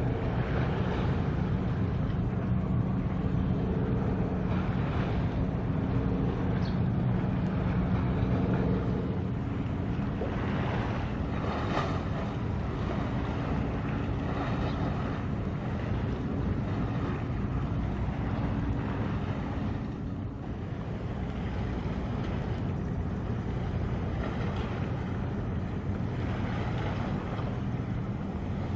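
Low, steady engine drone of a passing container ship, heard with wind noise on the microphone. The hum is strongest for about the first nine seconds and then fades as the ship draws away.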